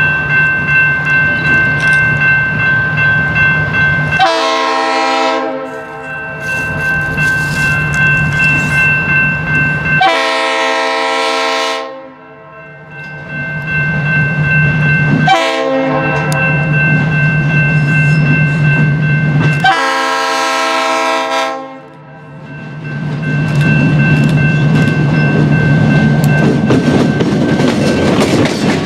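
A grade-crossing bell rings steadily while an approaching diesel locomotive sounds its air horn in four blasts, the usual grade-crossing signal. From about 23 seconds in, the locomotive's engine and rattling wheels grow loud as it passes close by.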